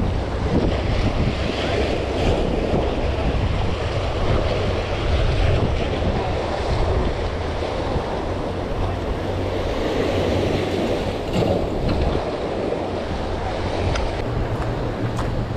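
Sea waves washing against a rock jetty, with steady wind buffeting the microphone.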